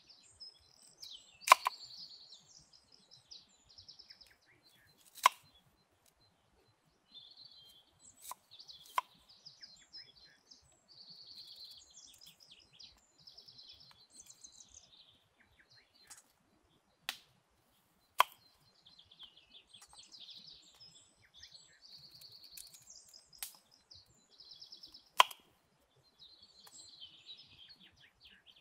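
Knife cutting small apples on a wooden board, the blade knocking sharply against the board about seven times at irregular intervals. Small birds chirp and trill in the background between the knocks.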